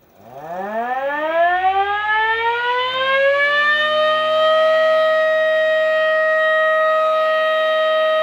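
3D-printed model of a Federal Signal Model 2 warning siren starting up. Its pitch winds up in a rising wail for about four seconds, then holds a steady tone.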